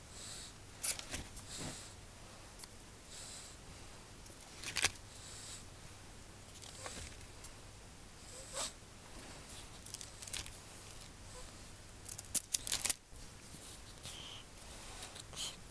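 Sketchbook pages being handled and turned: scattered paper rustles and light taps, with a quick run of louder ones about twelve seconds in.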